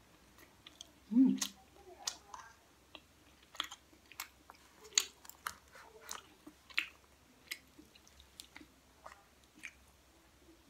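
Close-up mouth sounds of someone eating a soft, sticky rice cake topped with cheese: wet chewing with many short clicks and smacks, and a short vocal sound about a second in. A metal spoon scrapes an aluminium foil tray as another spoonful is taken.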